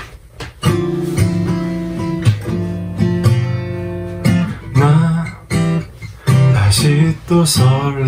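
Cort acoustic guitar strummed in steady chords, with a man's voice starting to sing about halfway through.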